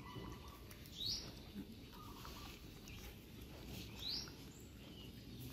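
A bird calling twice, each a short, quickly rising high chirp, about three seconds apart.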